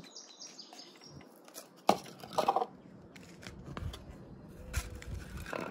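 Bowls being set down on a glass-topped table: a sharp knock about two seconds in, a short scrape just after, then a few lighter taps.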